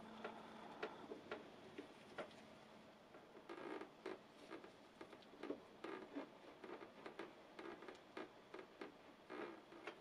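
Ratchet wrench clicking in short bursts of quick ticks as it turns the pinch bolt that clamps a scooter fork leg in its bracket.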